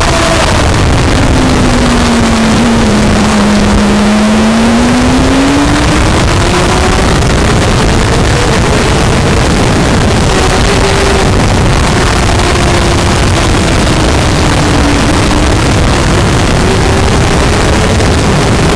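Onboard sound of a sport motorcycle at speed on a race track: a heavy rush of wind over the camera microphone, with the engine note beneath it falling in pitch over the first few seconds, climbing steadily again, then dipping and rising once more as the rider brakes and accelerates.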